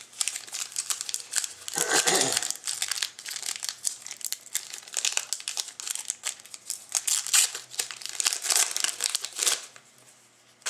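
Plastic wrapper of a Panini Zenith hockey card pack being torn open and crinkled by hand, with a louder rip about two seconds in. The crinkling stops about a second before the end.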